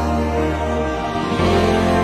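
Background music of sustained chords, the chord changing a little over a second in.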